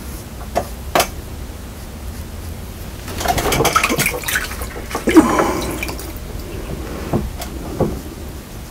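Water sloshing and trickling in a bucket in two spells as a sponge is rinsed and wrung out, with a couple of light clicks before and small knocks after.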